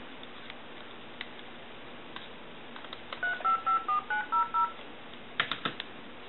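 Handheld touch-tone dialer beeping out a rapid string of about seven DTMF tone pairs, held against a telephone handset's transmitter to dial a number on the line. A few sharp handling clicks follow near the end.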